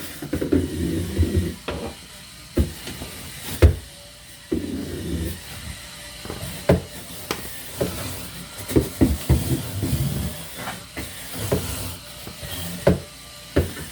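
Irregular knocks and clunks with rubbing and scrubbing noise, from handling and wiping the shelves inside a refrigerator.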